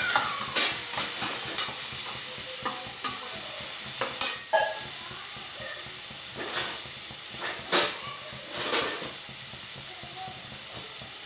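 A slotted steel spatula scraping and knocking against a stainless steel kadhai as chopped tomato, onion and spices fry in hot oil, under a steady sizzle. The strokes come irregularly, thinning out in the second half.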